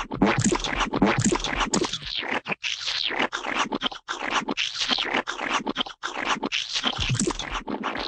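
Gooey splat sound effects: a dense, continuous run of wet, squelching splats with a few short breaks.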